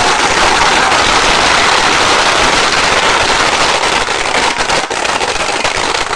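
Fireworks crackling: a dense, loud crackle of countless small pops that blend into one continuous hiss, thinning into separate pops near the end.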